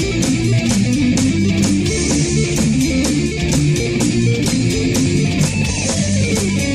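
Heavy metal music in an instrumental passage: electric guitar riffing over bass guitar and a steady, even drum beat.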